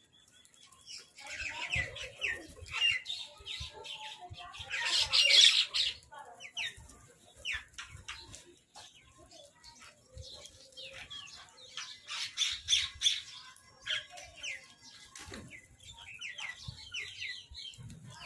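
Crows calling in short, harsh, repeated bursts while squabbling over food, with wings flapping; a loud flurry about five seconds in and another busy spell of calls near two-thirds of the way through.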